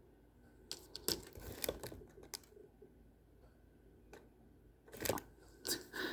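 Two short runs of clicking and rustling from small objects being handled by hand, about a second in and again near the end.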